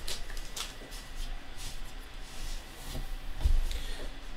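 Trading cards being handled and flipped through by hand: scattered soft rustles and slides of card stock, with a dull low bump about three and a half seconds in.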